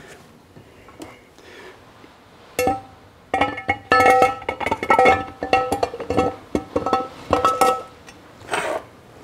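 Steel cluster gear of a T5 five-speed transmission being set into its case, knocking against the case and bearings. A run of clinks begins about two and a half seconds in, several a second, each ringing on with a clear metallic tone. A short rustle of handling follows near the end.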